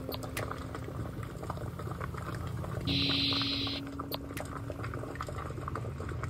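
Water simmering in a double-boiler pan, bubbling with small crackles, while melted soy wax is poured into a ceramic cup. A short hiss stands out about three seconds in.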